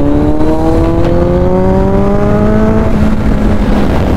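Kawasaki Z900's inline-four engine pulling hard through a gear, its pitch climbing steadily, then dropping at a gear change about three seconds in.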